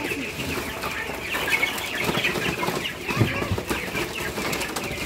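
A flock of young broiler chicks peeping without a break, many high chirps at once. About two to three seconds in, knocks and scuffling as a plastic crate of chicks is tipped out onto the slatted floor and the chicks flap and scramble.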